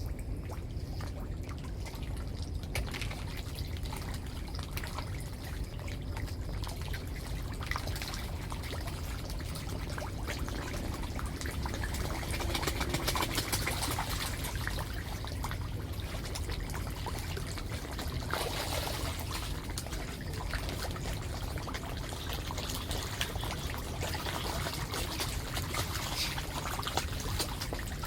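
Running water, steadily trickling and pouring, over a low rumble; it swells a little about halfway through.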